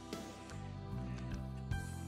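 Background music with sustained low notes that change a few times, and a couple of faint clicks.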